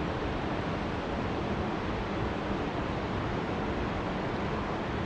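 Steady rush of water pouring through a dam spillway, an even roar with no breaks.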